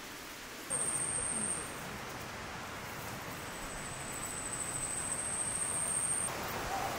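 Steady outdoor hiss with a thin, high, steady tone that comes in about a second in, breaks off, then returns for about three seconds and stops abruptly.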